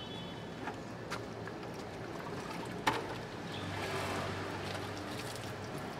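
Water poured from a small plastic bucket over a ceramic toilet bowl, rinsing it clean. A few light knocks come first, the loudest about three seconds in, and the water starts about half a second later and runs on.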